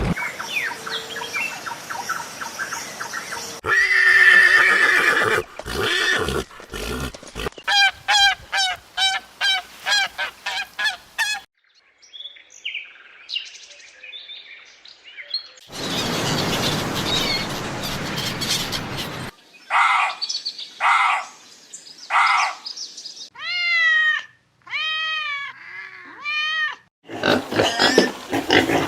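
A run of short recordings of different animal calls, one after another, among them bird calls repeated in quick series; another animal sound begins near the end.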